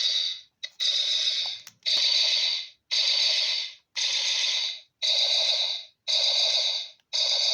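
GC07A sound module playing its sound effect through a small speaker fitted inside a vintage Kenner AT-ST toy, switched on by a magnet held to its magnet switch. It gives a repeating hissing burst about once a second, each burst just under a second long.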